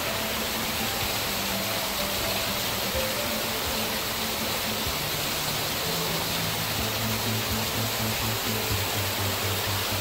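Steady rushing of a small artificial waterfall spilling over rockwork in an animal enclosure.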